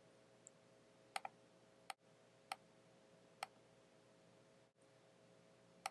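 Faint computer mouse clicks over near silence: a double click about a second in, then single clicks spaced irregularly every second or so, with one more near the end.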